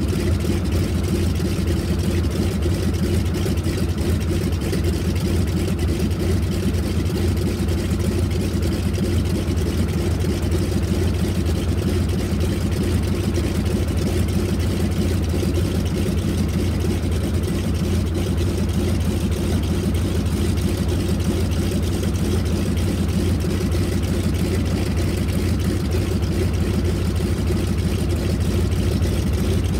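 Spartan Executive's Pratt & Whitney R-985 Wasp Junior nine-cylinder radial engine idling steadily on the ground after start-up.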